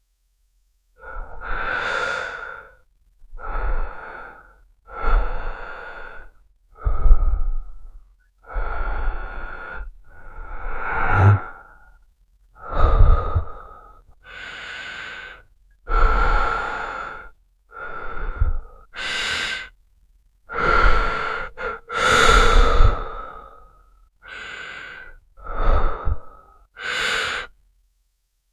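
A man breathing in and out: about sixteen separate breaths, each around a second long, with short silent gaps between them.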